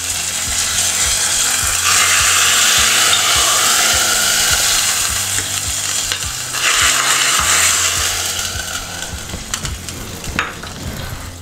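Hot tempering of oil with mustard seeds, cumin and curry leaves sizzling as it meets the jackfruit curry. It comes in two hissing spells, about two seconds in and again about seven seconds in, and dies down near the end.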